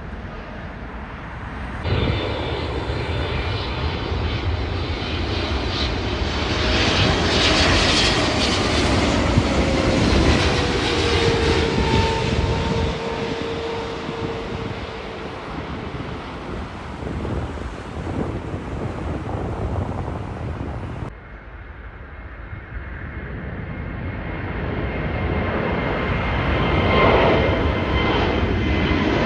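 Jet airliner engines passing close by: a loud rush of engine noise with a whine that slides down in pitch as the plane goes past. The sound changes abruptly about two seconds in and again about twenty-one seconds in, where one aircraft clip is cut to the next.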